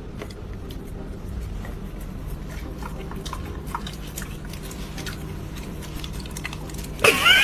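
A dog chewing and biting, with small scattered clicks over a low steady hum. About seven seconds in, a sudden loud, wavering high-pitched cry begins.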